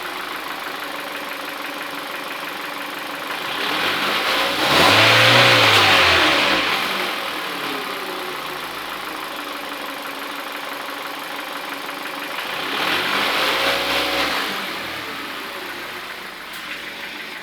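Kia/Hyundai G4FC 1.6-litre four-cylinder petrol engine, hot, idling with a diesel-like knock and revved up and back down twice. The knock stays even after the timing chain, tensioner and guides were replaced.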